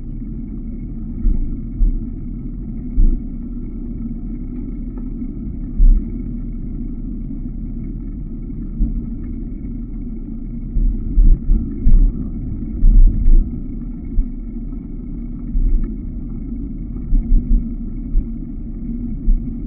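Wind buffeting the microphone of a moving camera: a steady low rumble with irregular louder thumps, coming thickest a little past the middle.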